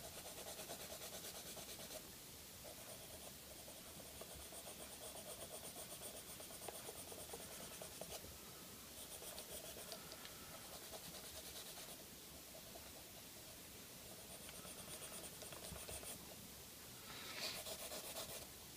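Orange Crayola coloured pencil shading on paper, held flat and rubbed in quick, even back-and-forth strokes. The rubbing is faint and grows a little louder near the end.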